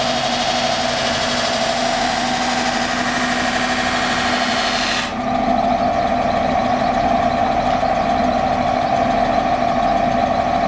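A Blaupließtbock blade-polishing wheel spinning with a steady hum while a steel blade is held against it, with a hissing grind on top. About five seconds in the sound changes abruptly: the hiss drops away and a steadier whine comes forward.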